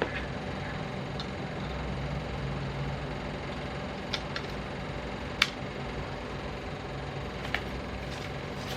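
Steady low hum with a few brief sharp clicks scattered through it, the loudest about five and a half seconds in.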